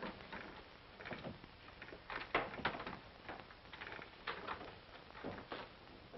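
Footsteps and scuffs on a wooden floor: an uneven series of short knocks, loudest about two and a half seconds in.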